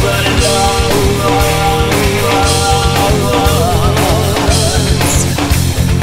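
Loud rock music with a steady drum beat and a singing voice.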